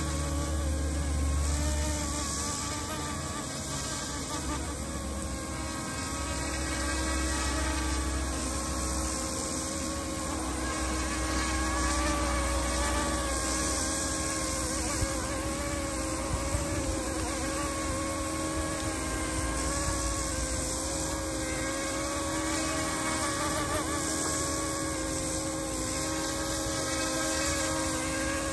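Radio-controlled scale model Coast Guard helicopter flying low, its motor and rotors making a steady buzzing whine that wavers slightly in pitch.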